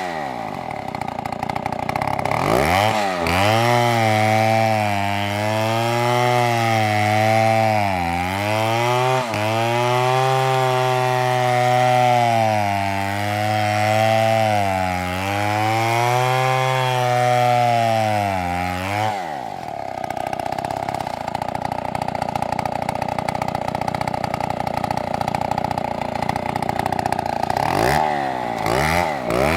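Chainsaw cutting wood, its engine note rising and falling as the chain bites and bogs in the cut. About two-thirds of the way through it settles to a steady high-revving drone, then begins to waver again near the end.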